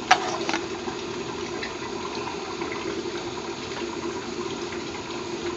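Glass lid set onto a stainless steel saucepan with two light clinks, over a steady rushing background noise.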